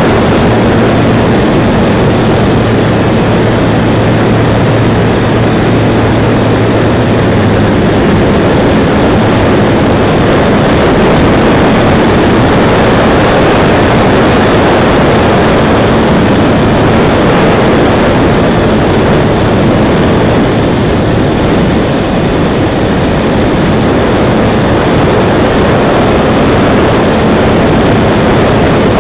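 Loud, steady rush of wind over an onboard camera's microphone on a FunCub radio-controlled model plane in flight, mixed with the hum of its electric motor and propeller. A low steady tone in the hum fades out about eight seconds in.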